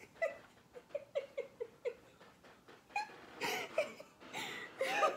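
People giggling: a run of short, squeaky, stifled giggles, then louder bursts of laughter from about three seconds in.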